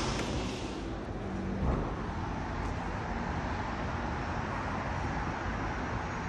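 Steady background noise of city traffic, an even wash of road sound with no single vehicle standing out.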